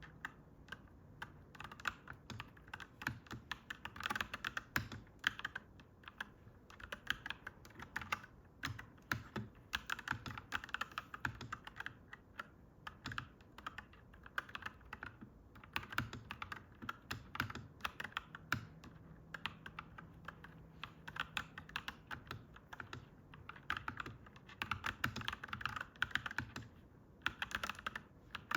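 Clacky mechanical keyboard being typed on in quick runs of keystrokes, with short pauses between the runs.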